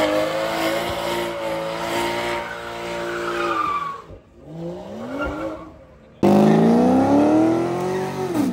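BMW 3 Series sedan's engine held at high revs with its tyres squealing through a burnout, stopping abruptly about four seconds in. After a quieter stretch, a Corvette's engine comes in loud and revs up in a long rising pitch as the car launches, easing off at the very end.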